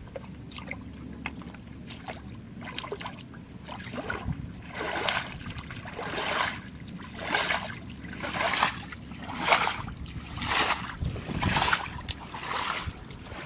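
Footsteps wading through shallow muddy water, splashing about once a second from a third of the way in.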